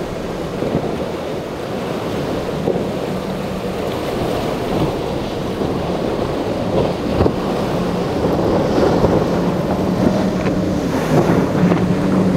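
Surf and wind noise on the microphone, with a Sea Ray Sundancer cruiser's engines droning steadily in the second half and slowly getting louder as it runs through the rough chop.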